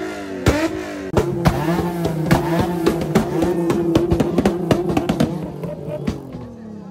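A car engine revved hard, its exhaust popping and crackling. After a quick blip near the start, the engine is held at steady high revs for about four seconds with crackles all through, then the revs fall away near the end.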